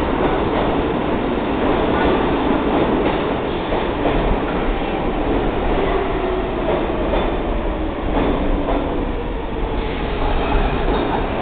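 New York City Subway R46 train pulling into an underground station past the platform: steady rumbling running noise with wheels clicking over rail joints. Faint whining tones come in during the second half as it slows.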